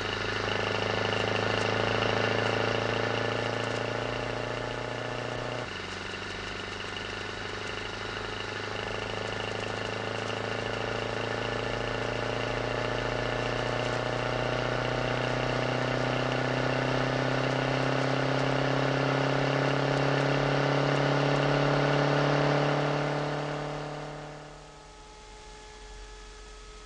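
A vehicle engine running with a steady hum. Its pitch drops suddenly about five seconds in, then climbs slowly as it gathers speed, and the sound fades away near the end.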